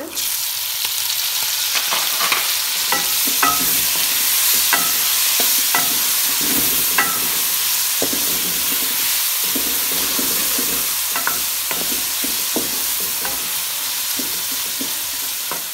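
Boneless chicken and chopped tomatoes frying in oil in a metal pan. The sizzle comes in suddenly as the tomatoes go in and stays steady, with irregular scrapes and knocks of a wooden spoon stirring against the pan.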